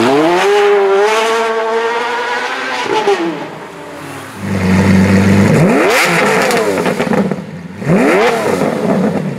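Sports car engine accelerating hard, its pitch climbing, holding for about two seconds, then dropping away. After a short lull it idles low and gives two quick rev blips, each rising and falling sharply, about two seconds apart.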